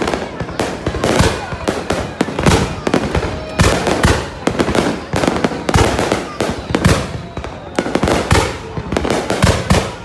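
Fireworks going off in a rapid, irregular barrage of sharp bangs and crackles, several a second.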